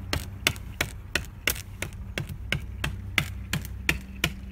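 A hammer striking a wooden block held against the arched window's frame, tapping the frame into place from outside. A quick, even run of sharp taps, about three a second, that stops near the end.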